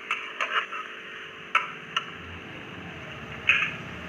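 A spoon stirring the spiced potato and sesame paste mix in a pressure cooker, clinking and scraping against the pot in scattered sharp clicks, the loudest about three and a half seconds in.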